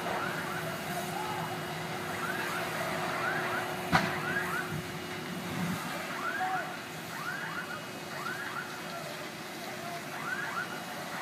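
Distant sounds of a burning house: a steady low hum under repeated short high tones that rise and fall, in irregular groups. One sharp bang about four seconds in.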